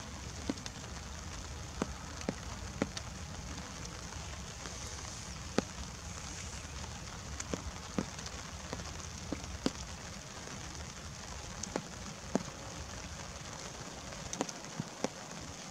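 Light rain falling steadily, an even hiss with single drops ticking close by at irregular moments, about one or two a second.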